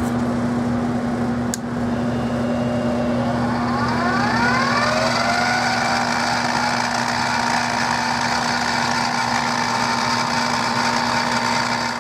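A shop machine's electric motor running with a steady hum, with one sharp click about one and a half seconds in. About three and a half seconds in, a whine rises in pitch and settles into a steady higher whine as the machine comes up to speed.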